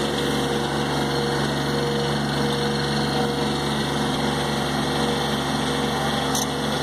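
Engine running steadily at constant speed with an even hum, powering a mechanized fertilizer-spreader hopper.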